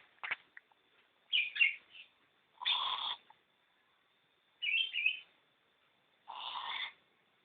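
Owl calling: two short chittering calls alternate with two harsh, hissing screeches, each about half a second long with pauses between.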